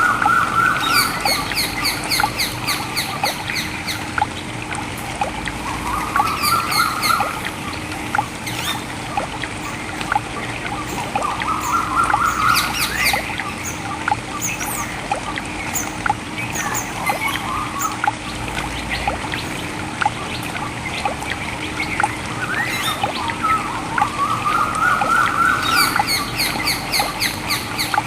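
Outdoor nature ambience with birds calling. A rising, level-topped call repeats about every six seconds, between bursts of rapid high trilling chatter, over a faint steady low hum.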